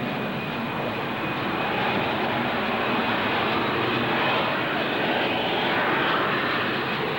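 Hawker P.1127's Bristol Pegasus vectored-thrust turbofan running: a steady, dense rushing noise with a thin high whine held through it, growing a little louder about two seconds in.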